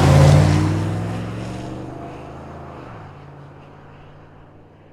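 Cinematic logo sound effect: a rushing whoosh that peaks just after the start, over a low steady hum, then fades away slowly.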